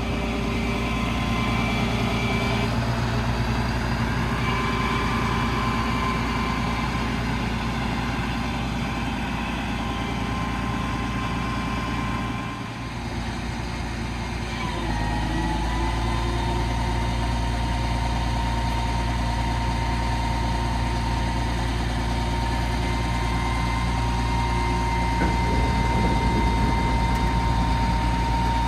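Cummins 5.9 diesel in a Ford F-750 work truck running steadily, with a faint steady whine over the engine. About twelve seconds in the sound dips briefly, then the whine picks up again at a slightly different pitch.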